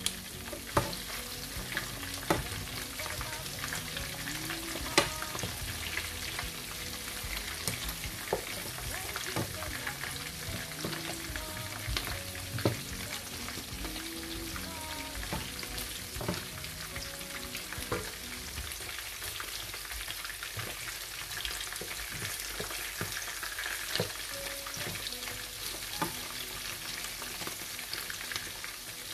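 Chicken pieces sizzling in oil in a non-stick frying pan while a wooden spatula stirs and turns them, with scattered taps and scrapes of the spatula against the pan over a steady sizzle.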